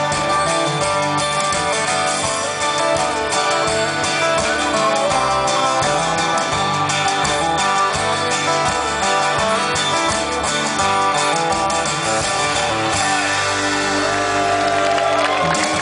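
Live acoustic band playing an instrumental passage without singing: several strummed and picked acoustic guitars over a bass guitar. The low bass drops out about thirteen seconds in, leaving sustained guitar notes as the song comes to its close.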